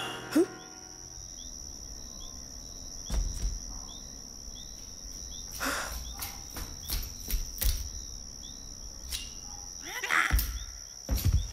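Night ambience of insects: a steady high trill with small cricket chirps repeating about twice a second. Over it come a sharp click just after the start, a few scattered knocks and a brief swish, then heavier low thumps near the end.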